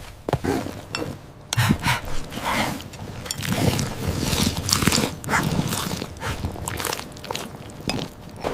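A rapid, irregular run of crunching and clicking sounds, starting about a second and a half in.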